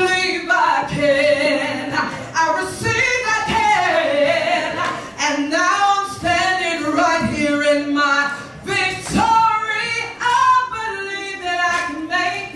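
A woman singing into a microphone with little or no accompaniment, her held notes wavering with vibrato.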